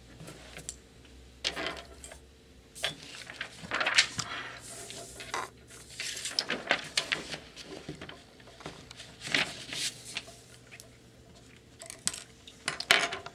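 Sculpting tools clinking and scraping as they are handled and set down on a work table: irregular clicks and short rubbing noises. The loudest comes about four seconds in, and a quick cluster follows near the end.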